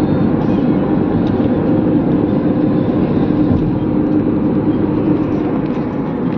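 Car on the move, a steady, loud drone of engine and road noise that starts suddenly at the cut.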